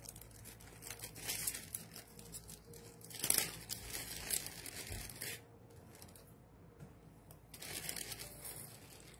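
Small plastic jewelry bags and cards being handled, crinkling and rustling in irregular bursts. The crinkling is loudest about three seconds in and again near the end, with a quieter stretch between.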